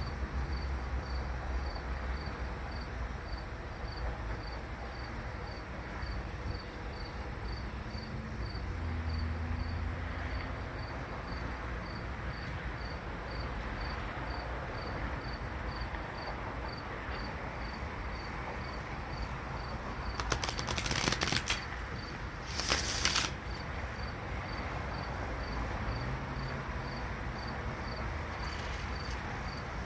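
Steady background hiss with a cricket chirping in a regular, unbroken rhythm. Two short, louder rustling bursts come about two-thirds of the way through.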